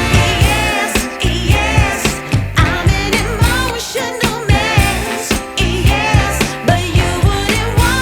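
Background music with a singing voice over a steady beat of about two beats a second.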